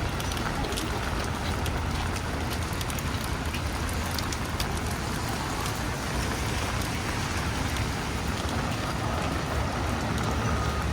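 Steady rain on a city street, with many sharp raindrop ticks, over a low rumble of road traffic.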